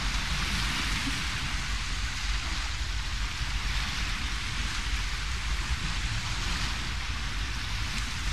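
Steady seaside ambient noise: an even hiss over a low rumble, with no separate events.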